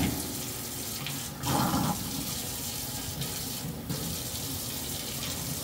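Faucet running steadily into a stainless steel sink, the stream splashing off a plate that is being rinsed and rubbed by hand.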